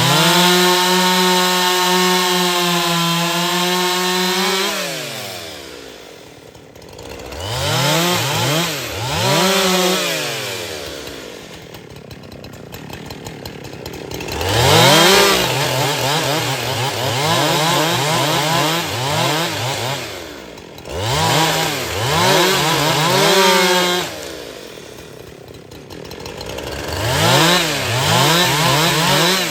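Husqvarna 372XP two-stroke chainsaw revved to full throttle in repeated bursts of a few seconds, dropping back to idle in between. In the longer bursts the engine pitch sags and recovers, as it does when the chain is cutting into wood.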